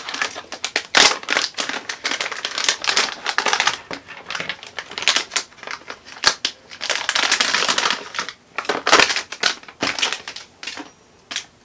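Plastic zip-lock bag crinkling and rustling as it is opened and handled, in irregular bursts with sharp crackles.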